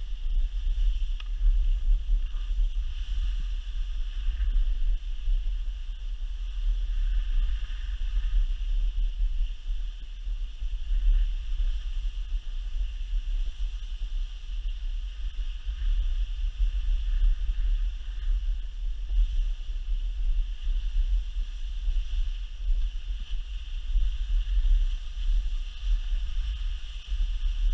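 Wind buffeting the microphone during a fast descent on snow, a steady low rumble, with a steady hiss of sliding over groomed snow.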